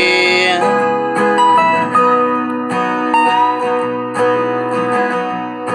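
Rock ballad music with a guitar lead playing a line of separate held notes, some bent upward in pitch, over a steady backing.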